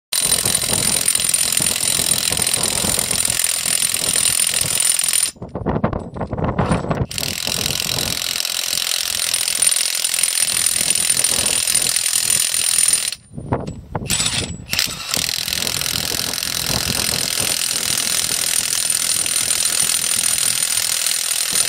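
Power impact wrench hammering as it runs M24 Hardlock nuts onto the bolts of a rail fishplate. It runs in long bursts, with a high whine over the rapid impacts, and stops briefly twice: about five and a half seconds in and about thirteen seconds in.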